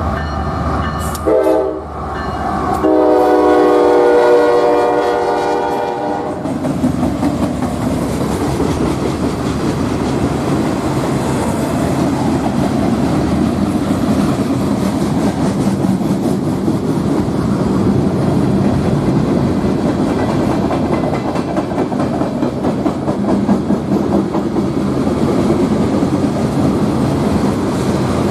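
Freight train horn sounding a short blast and then a longer one that cuts off about six seconds in, followed by the steady rumble and clickety-clack of freight cars rolling past.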